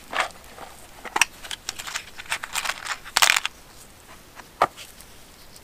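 Small-parts handling: a plastic copper-washer assortment case being opened, with irregular light clicks and rattles. The loudest is a short scraping rattle about three seconds in, and there is one sharp click near the end.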